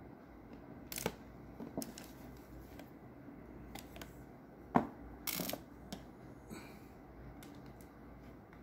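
Handling noise: scattered light clicks and knocks as a plastic bottle and a screwdriver are moved about beside an opened laptop, with one sharper knock just before five seconds in followed by a short rustle.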